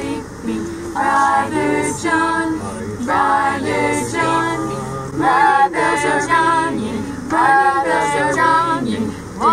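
A small group singing a cappella, mostly women's voices together in held, gliding phrases, inside a van with a low steady hum beneath.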